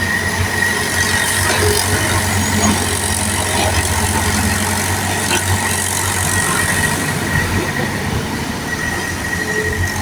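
Mini excavator running steadily: a low engine drone with a thin, steady high whine over it.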